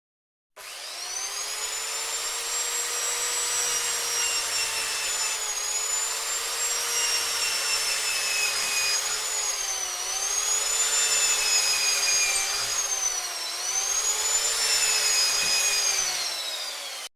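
Electric power tool motor running with a steady high whine and a noisy hiss over it, its pitch dipping briefly several times as it comes under load. Starts and cuts off abruptly.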